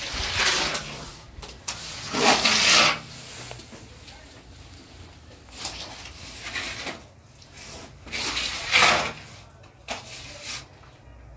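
Hands scooping and kneading wet plaster in a metal tray and pressing it onto a wall, heard as a series of scraping, swishing bursts, the loudest about two seconds in and again near nine seconds.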